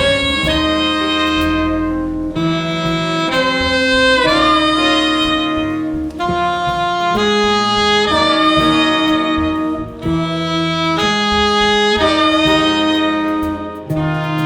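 Jazz horn section of saxophones and trumpet playing sustained harmonized notes that change every second or two, with short breaks between phrases.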